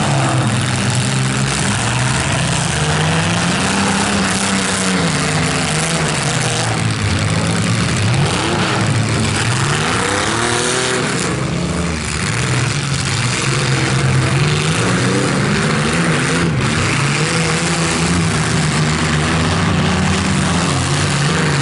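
Several compact demolition-derby cars' engines running and revving, their pitch rising and falling again and again as the cars accelerate through the mud, with a couple of sharp knocks about halfway and about three-quarters through.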